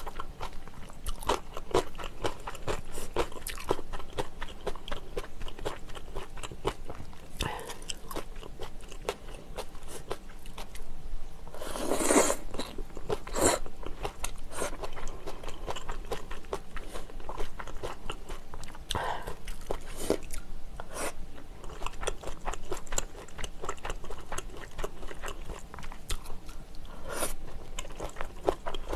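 Close-miked eating of spicy noodle soup: wet chewing and slurping of noodles, with many short mouth clicks and one louder, longer sound about twelve seconds in.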